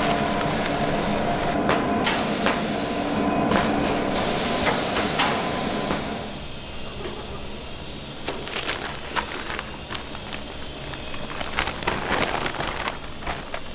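Ice cream factory production machinery running with a steady hum and hiss, dotted with clinks and knocks. About six seconds in it drops quieter, leaving scattered clicks and clatter.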